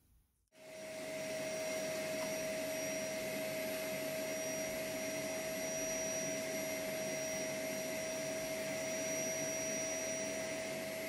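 Powder-coating spray gun and booth running: a steady rush of air with a constant hum, starting suddenly about half a second in.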